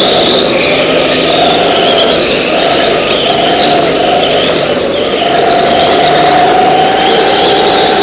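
Go-kart engine running hard at high revs; its pitch dips briefly several times in the first half as it lifts off for corners, then holds steady and high.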